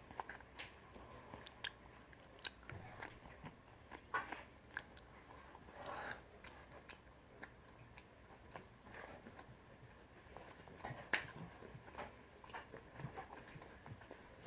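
Close-up chewing and biting of chewy Korean rice cakes: wet mouth clicks and smacks scattered irregularly, with a sharper click about eleven seconds in.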